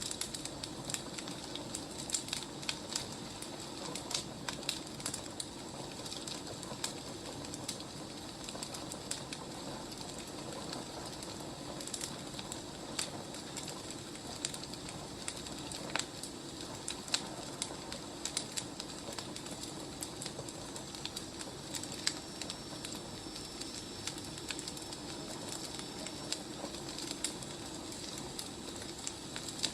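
Wood fire crackling, with irregular sharp pops and snaps over a steady low hiss. A faint thin high whistle runs for several seconds past the middle.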